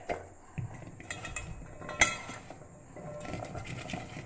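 Raw potato strips being tossed by hand in a stainless steel bowl, rustling and clicking against the metal, with one sharp clink about two seconds in.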